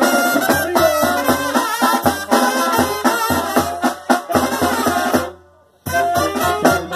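Mexican banda playing the instrumental intro of a corrido live: brass and sousaphone over a bass drum and snare drums, with steady drum hits. The band stops short for about half a second a little after five seconds in, then comes back in together.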